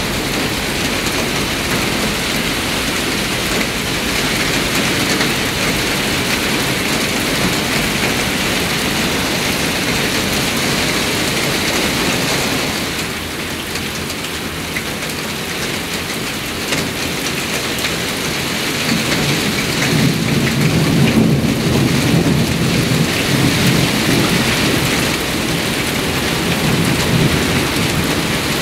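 Heavy downpour falling steadily. A low rumble of thunder rolls in past the middle and lasts several seconds.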